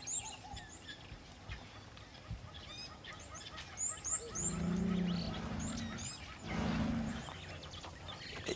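An African elephant bull calling twice with long, low calls, one about four seconds in and a shorter one near seven seconds. Birds chirp in short high notes.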